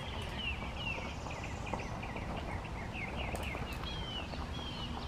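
Birds singing in the trees: a busy run of quick, high, slurred chirps and short whistles, over a steady low rumble.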